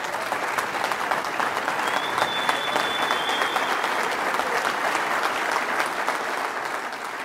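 Audience applauding steadily after a pledge of support, with one high, steady whistle lasting under two seconds starting about two seconds in; the clapping thins out near the end.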